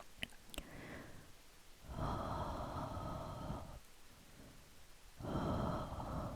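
Slow breathing close to the microphone for ASMR: two long, soft breaths, each about a second and a half, drawn out in the 'haa' and 'fuu' manner. A few faint clicks come just before the first breath.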